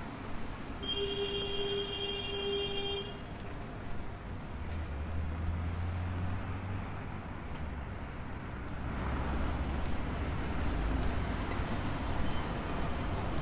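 Road traffic on a multi-lane city street: a steady hiss of passing vehicles. A steady pitched tone sounds for about two seconds near the start, and a low engine drone from a heavier vehicle comes in about four seconds in and carries on.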